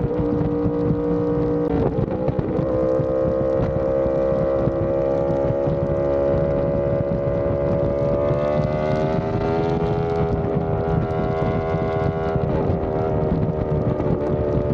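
Yamaha R1M's crossplane inline-four through an SC Project exhaust, running steadily at speed. The engine note breaks briefly and shifts in pitch about two seconds in, climbs slowly through the middle, then levels off. Wind rushes over the microphone.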